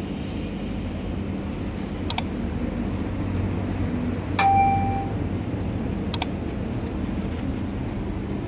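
Subscribe-button animation sound effects over a steady low outdoor rumble: a quick double mouse click about two seconds in, a short bell ding about four seconds in, and another double click about six seconds in.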